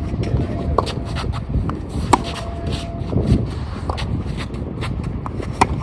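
Strong wind buffeting the microphone with a steady low rumble, broken by a few sharp knocks of a tennis ball being struck or bouncing, the loudest about two seconds in.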